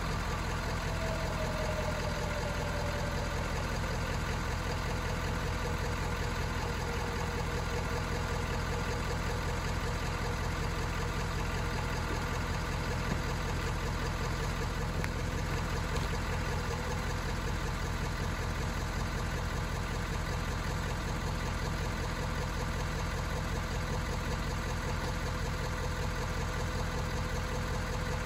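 Ford 6.7-litre Power Stroke V8 turbodiesel idling steadily with a newly fitted cold-side charge pipe.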